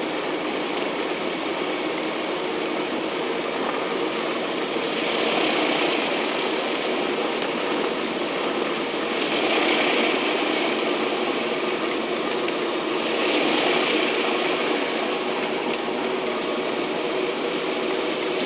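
Twin piston engines of a Piper Aztec running at low taxi power, heard from inside the cockpit as a steady drone. A higher hiss swells three times, each for about a second and a half.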